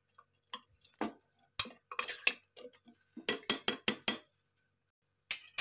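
Metal spoon stirring in a pressure cooker pot of chicken in spiced water, clinking and knocking against the pot's metal sides. Scattered clinks, with a quick run of about six knocks a little past the middle.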